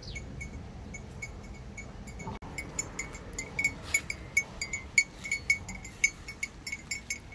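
Cattle chewing shredded banana stem and leaves at a trough: irregular crisp crunching clicks, several a second, louder from about two and a half seconds in.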